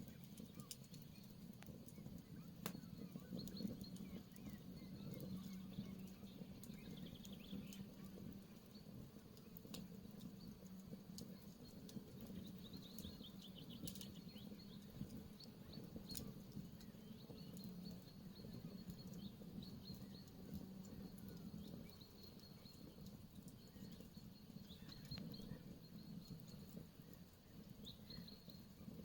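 Campfire crackling faintly, with scattered sharp pops over a low steady rumble. Small birds chirp in short high notes throughout, with a quick falling trill about halfway through.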